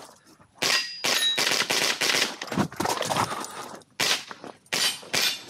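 A .22LR rifle firing a quick string of shots, with steel targets clanging and ringing as they are hit. The shots begin about half a second in, after a brief lull, and come irregularly in twos and threes.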